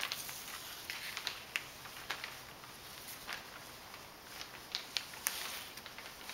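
Clear plastic zip-top gallon bag crinkling and rustling as a folded damp paper towel is slid into it, with a few scattered sharp crackles.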